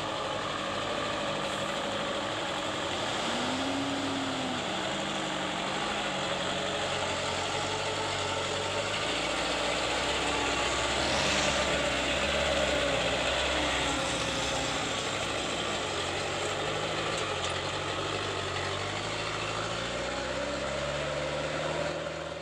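Diesel engine of a loaded Mitsubishi Fuso truck running slowly under load as it crawls past on a rough uphill road. The engine note is steady and grows a little louder about halfway through as the truck comes closest.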